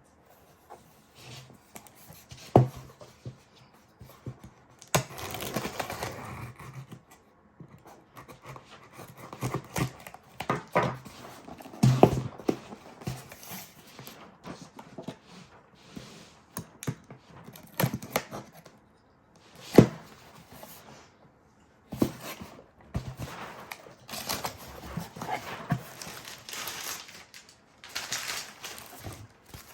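A box of cosmetics being unpacked by hand: rustling and crinkling of packaging, with scattered taps and knocks as items are handled and set down. Two sharper knocks stand out, about 3 seconds in and near 20 seconds.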